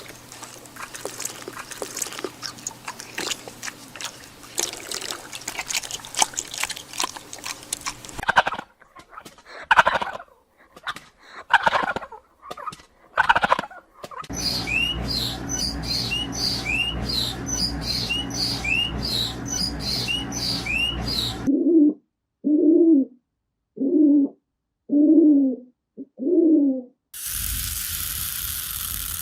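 A run of different animal and bird calls, one after another. Dense clicking and rustling comes first, then four loud calls, then a bird chirping with quick rising notes over a steady background. After that come five short low calls about a second apart, and a steady hiss near the end.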